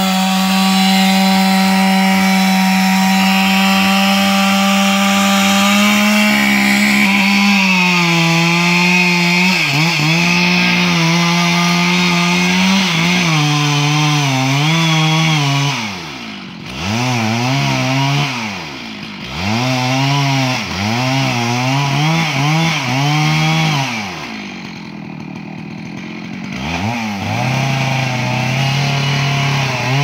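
Chainsaw making a felling cut at the base of a large tree: the engine runs steady at full throttle, then its pitch repeatedly sags and recovers as the chain works through the wood. It eases off for a few seconds near the end before running up again.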